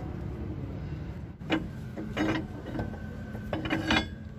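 Metal tools and parts clanking during work on a truck's leaf-spring suspension and bottle jack: a handful of sharp metallic clanks between about a second and a half and four seconds in, some leaving a brief ring, over a steady low hum.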